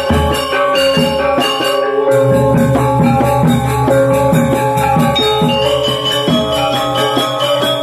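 Balinese gamelan gong ensemble playing lelambatan: bronze metallophones and gongs strike interlocking ringing tones over steady drum strokes. A deep, held gong-like tone comes in about two seconds in.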